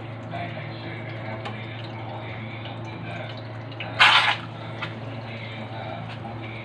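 An egg frying in oil in a small frying pan, sizzling and crackling, with a loud burst of sizzle about four seconds in as hot oil is spooned over it. A steady low hum runs underneath.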